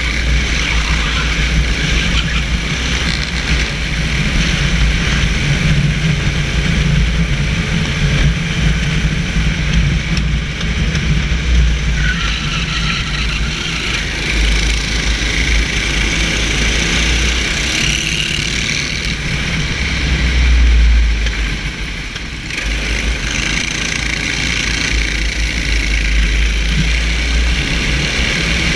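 Racing kart's engine running under load through the laps, heard onboard with a heavy low rumble and a steady hiss of wind and tyre noise; the sound dips briefly about two-thirds of the way through.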